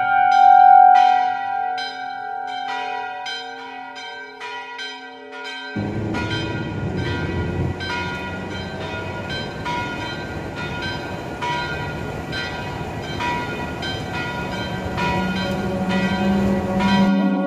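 Church bells ringing a peal, stroke after stroke with long ringing tones. About six seconds in, a loud steady rushing rumble sets in beneath the bells, which keep sounding more faintly through it.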